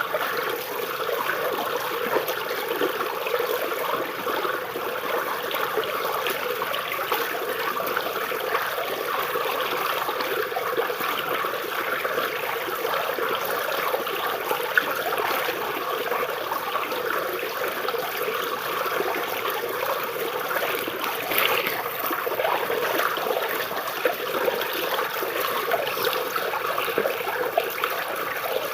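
Shallow river water flowing and trickling beneath tree roots: a steady babbling with many small splashes and plinks.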